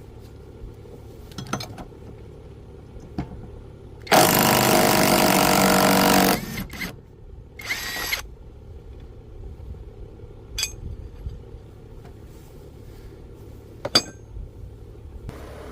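Bauer brushless 3/8-inch cordless impact wrench running on a lawnmower blade bolt in one burst of about two seconds, then a short second burst. A few sharp metallic clicks follow.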